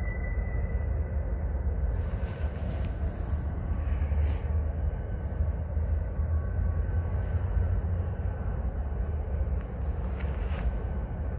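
Steady low rumble with a few faint steady high tones over it, and brief swells of hiss about two, four and ten seconds in.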